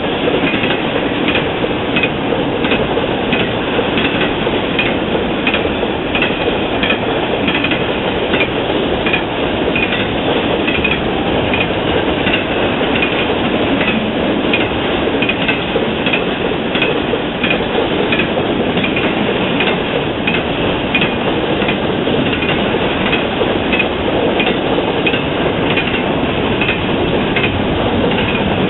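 Intermodal freight train rolling steadily past, trailer-carrying flatcars giving way to double-stack container cars: a continuous rumble of wheels on rail with repeated short wheel clicks.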